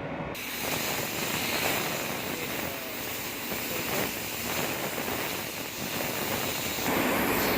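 Compressed air hissing loudly as it is blown through a smoke detector sensor and airflow switch to clean them. The hiss starts suddenly, wavers with a few short dips, and gets louder near the end.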